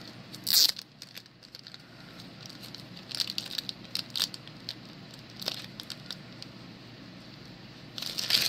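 Plastic card sleeves and toploaders being handled: scattered short crinkles and clicks, a sharp one about half a second in, a cluster around three to four seconds, and another just before the end.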